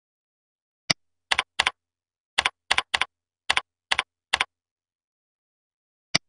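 Typing on a computer keyboard: about eight quick keystrokes, each a short double click. A single mouse click comes about a second before the typing and another near the end.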